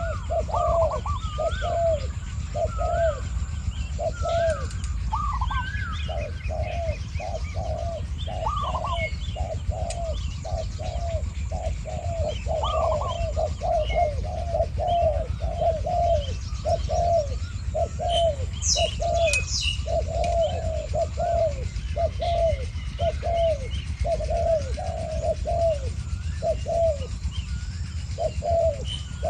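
Spotted doves cooing back and forth, a decoy dove and a wild dove answering it, in a steady run of repeated coos that barely pauses. Small birds chirp higher up, and a steady low rumble sits underneath.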